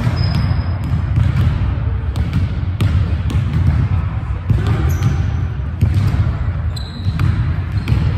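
Pickup basketball on a hardwood gym floor: a ball bouncing with sharp knocks, and a few short high sneaker squeaks, over a constant low rumble of play and players' voices.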